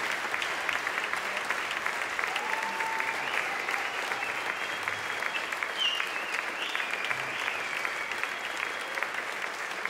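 Audience applauding steadily, a dense mass of hand claps that eases slightly near the end.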